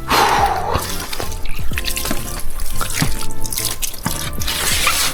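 Background music with a steady beat and sustained low notes, over bursts of hissing noise.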